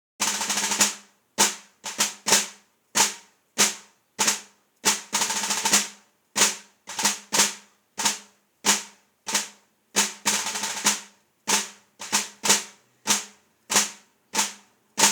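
Solo snare drum played with sticks: a run of single strikes and flams, each ringing out briefly, broken by three short rolls of about half a second to a second, near the start, about five seconds in and about ten seconds in.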